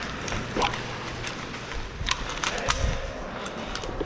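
Scattered sharp clicks of airsoft gunfire, single shots at irregular intervals with a few close together around the middle.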